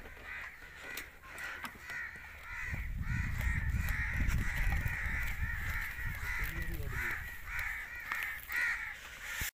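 Crows cawing over and over, several harsh calls a second throughout. A low rumble on the microphone swells from about three seconds in and fades after about seven.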